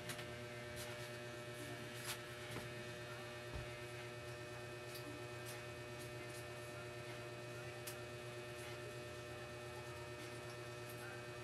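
Steady electrical mains hum, with faint scattered clicks and scrapes from a tool working hardened, cement-like dried thermal paste off a laptop's CPU cooler.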